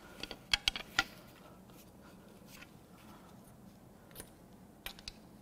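Light metallic clicks and taps of hand tools as a VANOS solenoid is pried out of the aluminium cylinder head: a quick cluster in the first second, then a few scattered clicks near the end.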